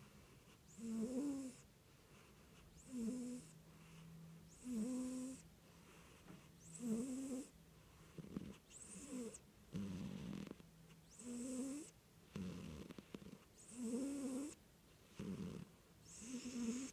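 Domestic cat snoring in its sleep, one breath about every two seconds. Most breaths carry a short, wavering whistle-like tone, and a few are rougher and noisier.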